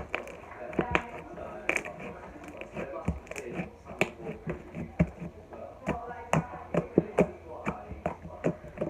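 Slime being squished and poked by hand, giving an irregular run of sharp clicks and pops, several a second.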